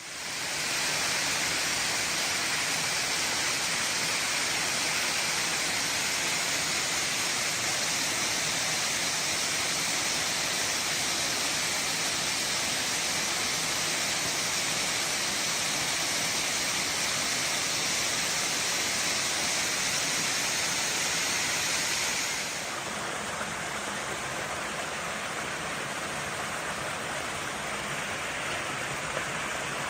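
Steady rushing water, a loud even hiss. About two-thirds of the way through it drops in level and its high hiss fades.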